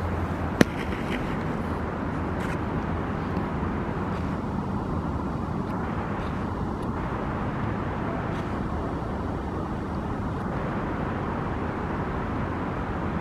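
Steady city traffic rumble from the surrounding roads and bridges, with one sharp click about half a second in.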